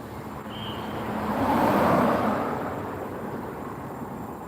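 A road vehicle passing by, its noise swelling to a peak about two seconds in and fading away.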